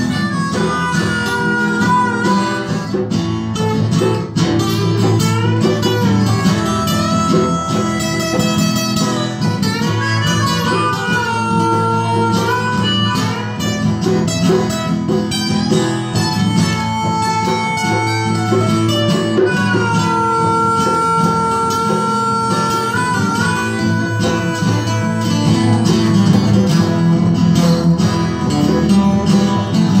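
Amplified harmonica played through a vocal microphone, long held notes that bend in pitch, over strummed acoustic guitars.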